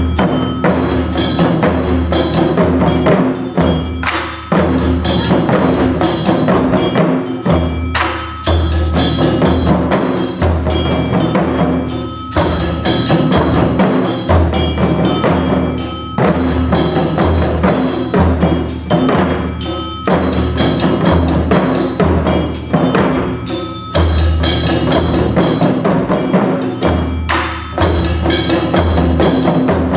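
Taiko drum music in a modern arrangement, played without shouted calls (kakegoe): a loud, steady percussion groove with heavy low drum hits and wood-block-like clicks, falling into phrases that break about every four seconds.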